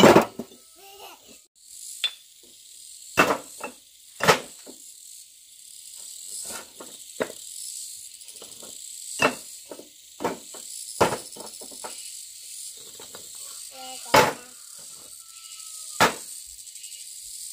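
Steady chirring of insects, crickets by its character, with about ten sharp knocks at irregular intervals standing out above it.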